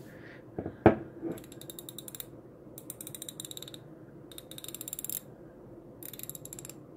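Vintage Sparta socket ratchet worked by hand, its pawl clicking in four quick runs of about a second each; the mechanism still works. A single sharp knock comes about a second in.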